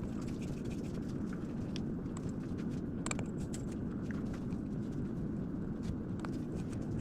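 A few faint, sharp little clicks of tiny plastic and metal wheel parts and a small tool being handled while fitting the wheel nuts on a 1:24-scale RC wheel, over a steady low background hum.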